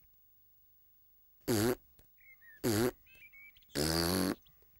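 A cartoon piglet hiccupping three times, about a second apart, each a short squeaky 'hic'; the third is longer than the other two.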